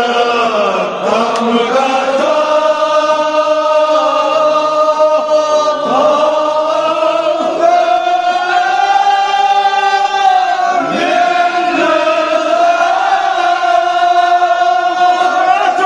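Men's voices chanting a Kashmiri marsiya (Shia elegy) together, in long, drawn-out notes that slide up and down in pitch without a break.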